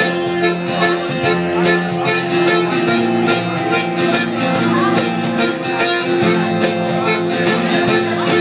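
A live band playing a tune on squeezebox, electric bass and strummed acoustic guitar, with a hand drum keeping a steady beat.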